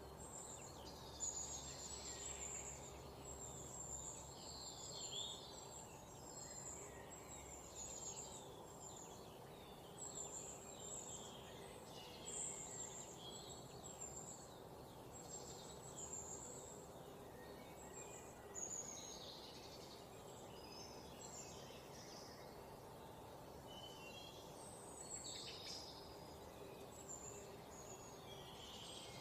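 Forest ambience: many songbirds chirping and calling all through, over a steady low background hiss.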